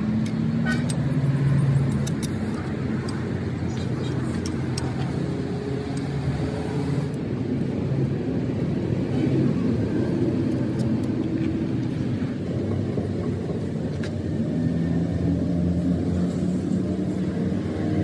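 A vehicle engine running steadily with a low rumble, with a few light metal clinks of a spanner on bolts in the first few seconds and again a few seconds later.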